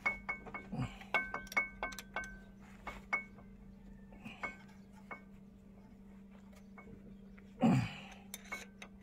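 Metal clinks of a spanner on the connecting-rod bolts inside the open crankcase of a VST Shakti 130DI power tiller diesel engine. Quick ringing clinks come over the first few seconds, then scattered ones, with a brief louder noise near the end. A low steady hum runs underneath.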